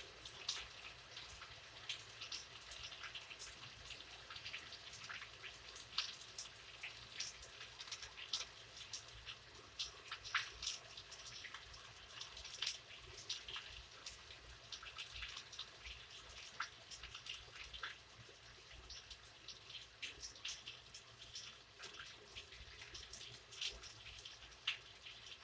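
Rain falling, heard as a faint steady hiss with many irregular drops striking close by, several a second.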